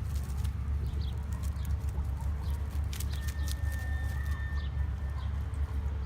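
Chickens clucking, with short high chirps, over a steady low rumble. A single thin held tone sounds for about a second and a half a little after the middle.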